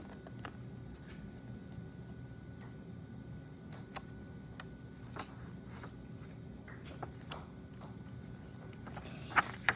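Low steady room hum with scattered faint clicks and taps, and a sharper click near the end.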